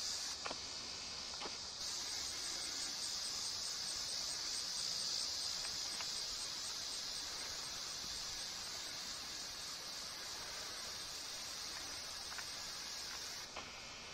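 Steady, high-pitched chorus of insects droning without a break, with a few faint clicks.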